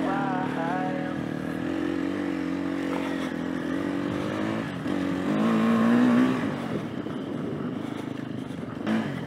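Enduro motorcycle engine running while being ridden, its pitch rising and falling with the throttle, with a louder rev about five to six seconds in.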